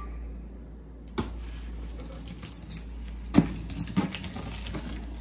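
Kitchen knife slitting the packing tape along the seam of a cardboard box: a scratchy slicing from about a second in, with a few sharp clicks as the blade catches, the loudest about three and a half seconds in.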